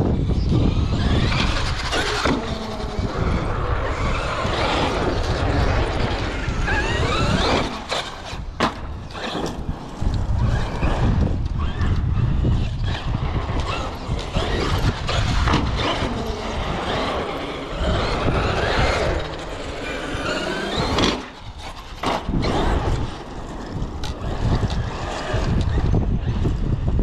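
Traxxas X-Maxx electric RC monster truck's brushless motor whining, its pitch rising and falling over and over as it accelerates and slows, with wind rumbling on the microphone.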